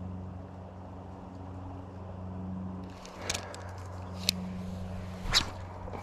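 A steady low motor hum, with three sharp clicks in the second half.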